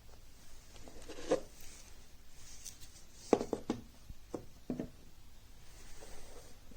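A handful of short, light knocks and clicks, as of objects being handled: one about a second in, then a quick run of four in the middle.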